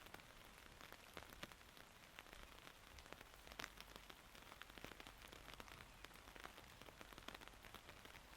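Light rain falling, many separate drops ticking close by over a faint, steady hiss.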